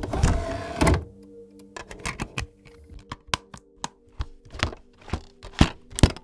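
DVD player mechanism and disc handling: a rattling clatter in the first second, then a string of irregular mechanical clicks and clunks over a steady low hum.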